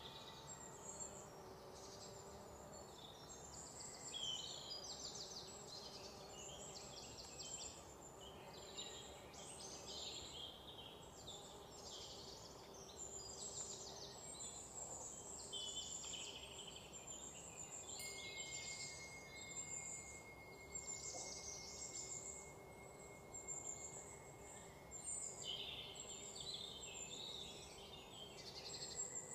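Faint chirping of birds and insects: many short high chirps and rapid trills over a low hiss, with a thin steady high tone joining about two-thirds of the way through.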